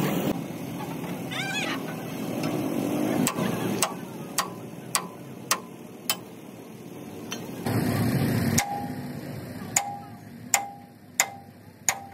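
Steel struck repeatedly with a hammer: about a dozen sharp blows roughly half a second apart, several of the later ones leaving a short metallic ring.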